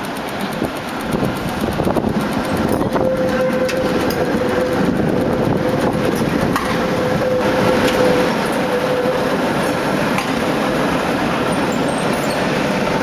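Tatra T3 tram passing close by, its wheels rumbling and clicking over the rails, louder from about a second in. From about three seconds in to about nine seconds a steady whine sounds over the rumble, the classic noise of the T3's accelerator.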